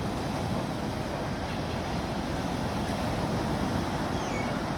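Steady rush of sea waves, mixed with wind buffeting the microphone.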